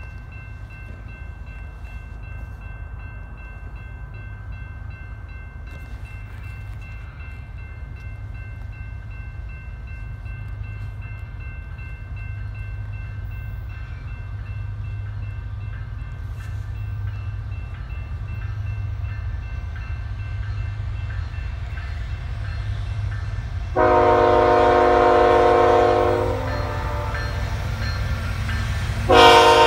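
An approaching diesel locomotive rumbles low and grows steadily louder. Its air horn then sounds two long, loud blasts, the first about 24 seconds in and the second near the end.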